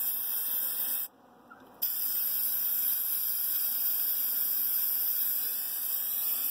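Aerosol spray-paint can spraying with a steady hiss. It stops for under a second about a second in, then sprays on without a break.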